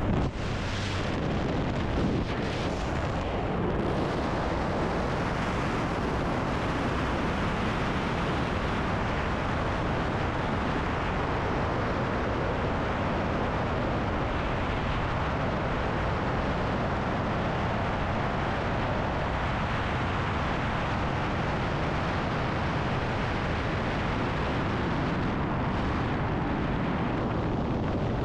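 Wind rushing over the microphone of a skydiver's camera in freefall: a steady, even noise that does not let up.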